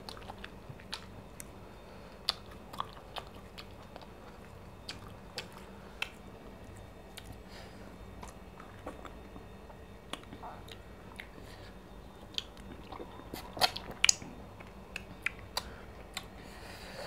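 Close-miked eating sounds: scattered soft wet clicks and smacks of chewing, and of fingers tearing fufu and scooping sticky ogbono soup, with a few louder smacks late on.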